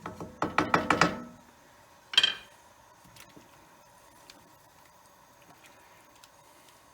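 A single sharp clatter of kitchenware about two seconds in, then olive oil heating in a frying pan gives faint, scattered ticks as it starts to sizzle, over a steady faint hum.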